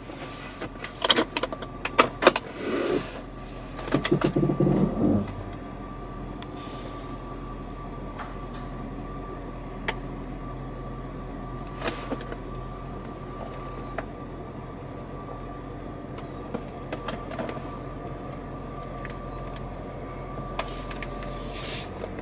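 Jeep Cherokee running at idle, heard from inside the cabin: a steady low hum with a faint constant high tone. A few clicks and rustling knocks come in the first five seconds, then occasional light ticks.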